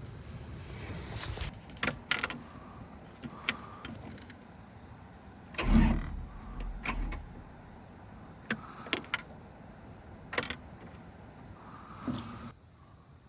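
Sharp knocks and cracks of cut bamboo being handled, several seconds apart, with one heavy thump about six seconds in.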